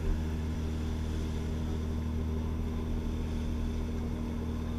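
Ferry's engine running with a steady low drone, over the rush of water in the boat's wake.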